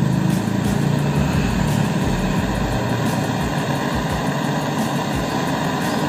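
Handheld gas cartridge torch flame burning steadily on a copper refrigeration pipe, brazing the folded charging pipe shut to seal the system after a freon recharge.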